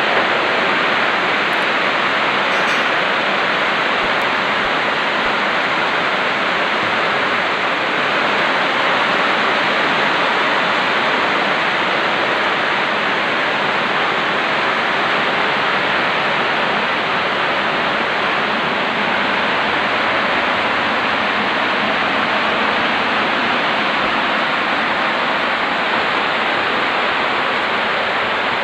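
Steady, loud rush of floodwater welling up into a bathroom and running across its concrete floor.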